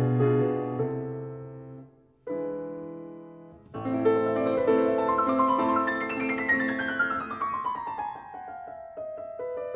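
Background piano music. The notes die away about two seconds in, a single chord rings out, then the playing resumes with a descending run of notes.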